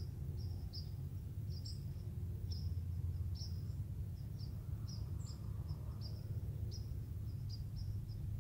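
Low wind rumble on the microphone, with a small bird repeatedly giving short high chip notes, two or three a second at uneven spacing.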